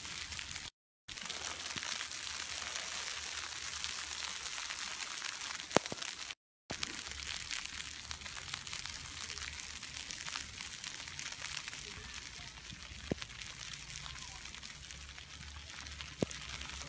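Steady hiss of wind and falling snow with a fine patter of flakes on the microphone, heard from a moving chairlift under a low rumble. A few sharp clicks come through, the loudest a little before the middle. The sound cuts out to silence twice, about a second in and again past the middle.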